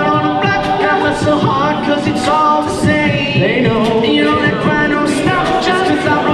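An a cappella vocal group singing in several-part harmony over a steady beat.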